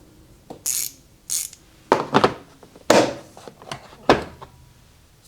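Steel sockets and hand tools being handled in a socket set's case: a string of separate clicks and clacks, with a couple of short scraping sounds.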